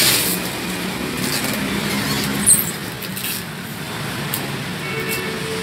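Steady hum of a vehicle engine running in the background, over handling noises as hands move a plastic-wrapped water pump in its cardboard box. There are a few light clicks, and a brief sharp squeak about two and a half seconds in.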